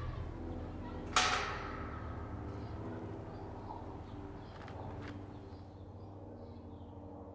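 Outdoor ambience with a steady low rumble. A single sharp bang comes about a second in and rings briefly, followed by a few lighter clicks, and faint bird chirps come in as the sound fades toward the end.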